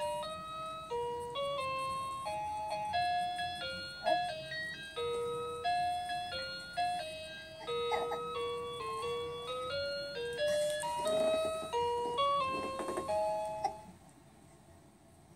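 An electronic musical baby toy playing a simple tinny tune, one note at a time, which stops about 14 seconds in.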